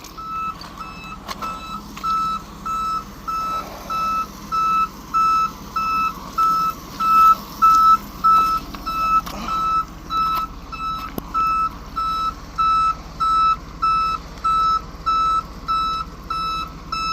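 Tow truck's back-up alarm beeping steadily at one pitch, evenly spaced, over a low rumble.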